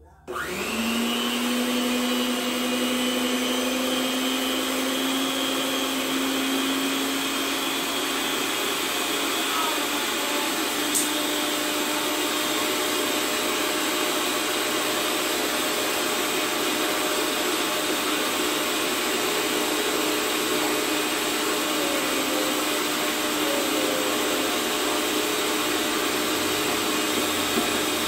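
Electric hand mixer on its stand running steadily, its twin beaters whipping a chilled cream mixture in a plastic bowl. The motor spins up with a quick rising whine at the start, then runs at an even pitch, with a single tick near the middle.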